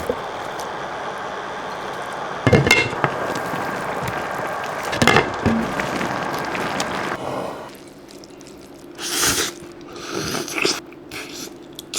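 Steady hiss of a pot of chicken, sweet corn and noodles cooking, broken by a couple of sharp utensil knocks; after about seven seconds the hiss stops and a few quieter clinks and scrapes follow.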